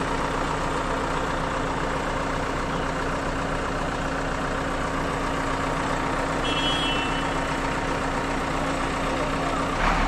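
Hidromek HMK 102B backhoe loader's diesel engine idling steadily, with a constant low hum.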